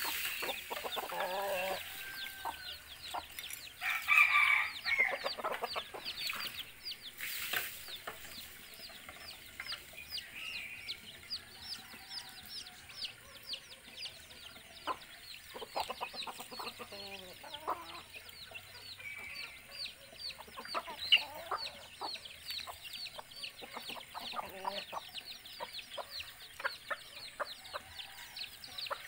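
Roosters clucking on and off, with a louder call about four seconds in, over fast high chirping that runs throughout.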